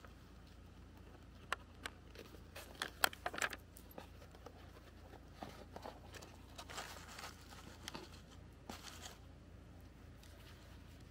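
Plastic packaging crinkling and tearing as it is handled, in short crackles: a dense cluster from about one and a half to four seconds in, then more scattered ones from about five and a half to nine seconds.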